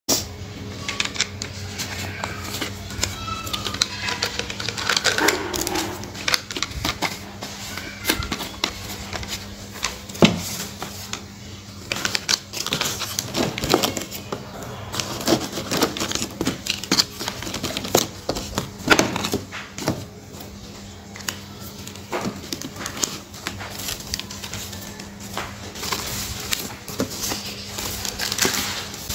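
Crinkling and rustling of tissue paper and plastic wrapping as a small cardboard box is packed by hand, with irregular light clicks and taps of pens and tape rolls being set in.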